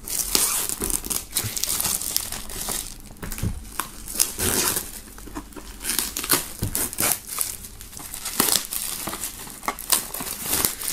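Clear plastic shrink-wrap film being peeled off a box and crumpled in the hands, crinkling and crackling in irregular spurts.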